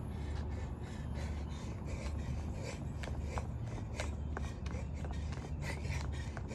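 Jump rope skipping on asphalt: the rope ticks against the pavement several times a second in a steady rhythm, with a rasping swish between strikes. A low steady rumble runs underneath.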